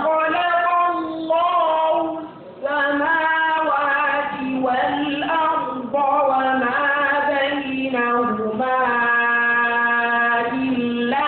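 Qur'anic recitation in the melodic tajweed style by a single unaccompanied high voice. The reciter draws the words out in long held, ornamented notes, with short breath pauses about two and six seconds in.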